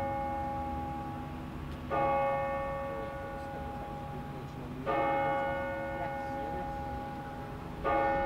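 A large clock-tower bell striking the hour: the same single note struck three times, about three seconds apart, each stroke ringing on and fading slowly.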